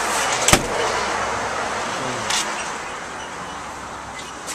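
Steady road-traffic noise, with one sharp knock about half a second in. The noise slowly fades toward the end.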